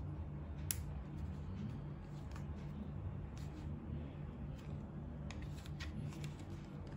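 Godox V860II-S speedlight being handled: one sharp plastic click about a second in and a run of lighter clicks near the end as the flash head is swivelled and tilted, over a steady low hum.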